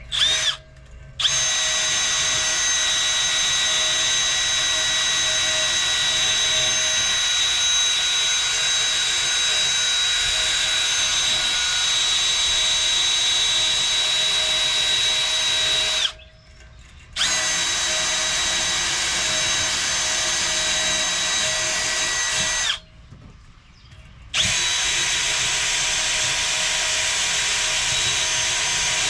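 Cordless wet/dry shop vacuum running with a steady high whine, likely cleaning out debris inside the condenser. It is switched off and back on a few times, spinning up again after each short pause.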